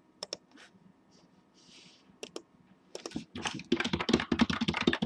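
Typing on a computer keyboard: a few scattered key clicks, then a quick run of keystrokes in the last two seconds.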